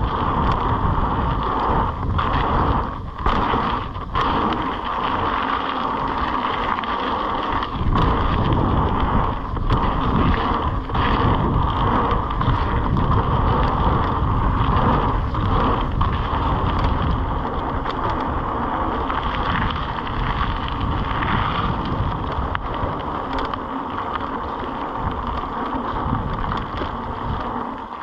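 Mountain bike riding down a flow trail, heard from a camera on the bike or rider: steady rush of wind and rolling tyre noise, with occasional knocks as the bike goes over bumps.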